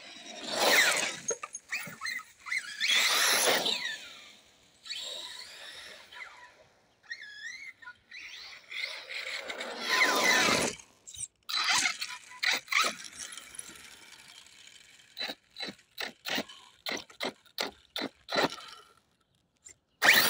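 Arrma Kraton electric RC monster truck driving on asphalt: a few loud passes of motor whine and tyre noise that swell and fade, then a quick run of short, sharp bursts as it is blipped and skids.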